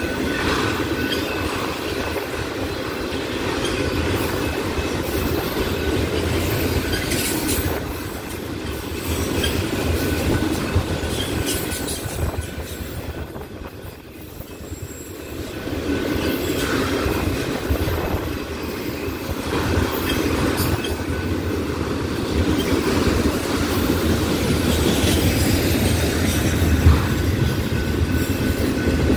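Empty autorack freight cars rolling past, wheels clattering over rail joints with a faint steady squeal. The rumble dips about halfway through and builds again.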